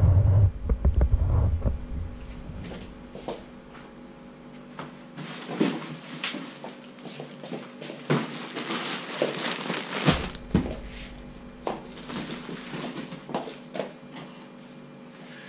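A large cardboard box being carried, set down and handled on a wooden floor: scrapes, knocks and rustling of cardboard and a plastic-wrapped parcel. A low rumble comes at the start.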